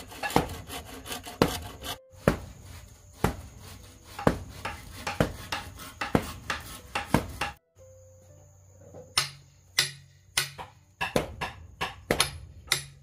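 Bow saw cutting through a bamboo pole, with rasping strokes about once a second. After a short break, sharp knocks of a hammer striking a blade into bamboo to split it, coming faster near the end.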